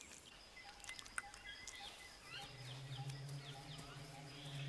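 Faint outdoor ambience with small birds chirping in short downward calls. About halfway through, a low, steady musical drone fades in underneath.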